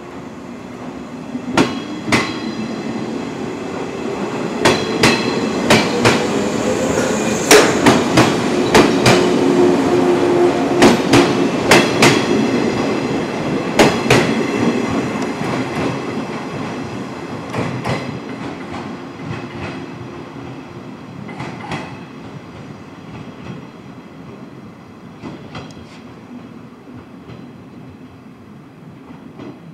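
JR 115-series electric multiple unit pulling away: its traction motors whine, rising in pitch as the train accelerates. The clack of wheels over rail joints comes quicker and louder as the cars pass, then the sound fades as the train draws away.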